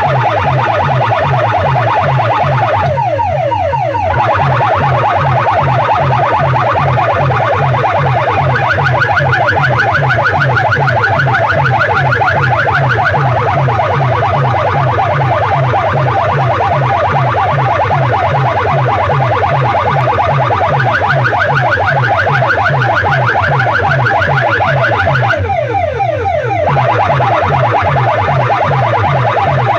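Massed horn loudspeakers of a DJ sound-box rig blasting, very loud, a repeating electronic alarm-like warbling tone over a fast pulsing bass beat. Twice, about 3 s and 25 s in, it breaks into a brief sweep falling in pitch.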